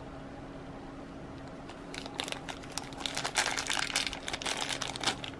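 Clear plastic bag crinkling and crackling as a small figure is worked out of it, a dense run of crackles starting about two seconds in.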